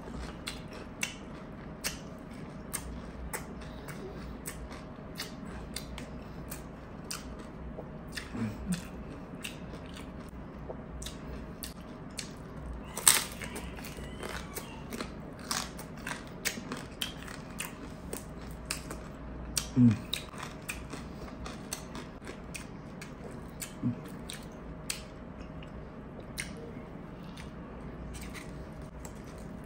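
A person eating close to the microphone: irregular crunchy bites, chewing and mouth clicks, with a sharp loud crunch about halfway through, over a faint steady hum.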